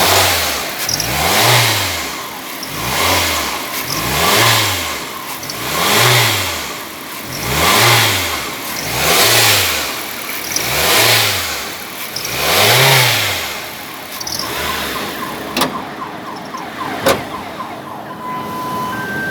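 Vehicle engine revved in a steady series of about nine blips, one every second and a half, then settling to a steadier run about fourteen seconds in, with two sharp clicks. With a new belt fitted, the owner hears a strange noise from the transmission when accelerating.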